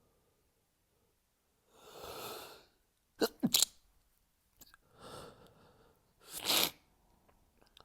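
A person sneezing repeatedly in an allergy sneezing fit. A drawn-in breath is followed by two quick, sharp sneezes in a row, then another breath, and a third sneeze near the end.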